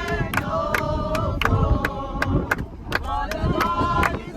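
A congregation singing a gospel chorus together, with sharp rhythmic claps keeping an even beat of about two to three a second.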